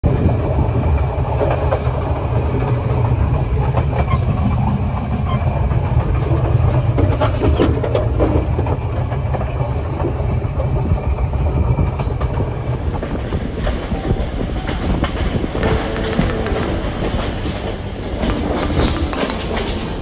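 Passenger train running, heard from inside a crowded carriage: a steady low rumble of wheels on rail with clickety-clack and rattling. About twelve seconds in the heavy low rumble eases and a lighter, brighter clatter takes over.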